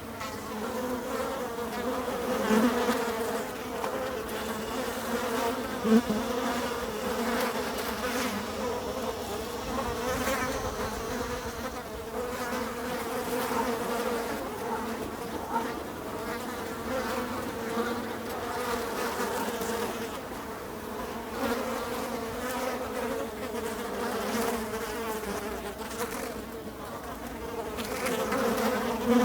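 Many flies buzzing at once, a dense steady drone of wingbeats that swells and fades as individual flies pass close, briefly louder a few times.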